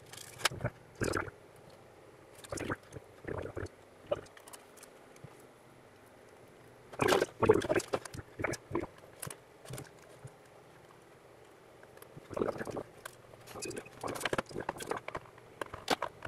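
Hands working the plastic case of a variable frequency drive: irregular clicks, scrapes and taps as a fingernail picks off a warranty sticker and the case cover is worked loose. The loudest cluster of scrapes comes about seven to nine seconds in.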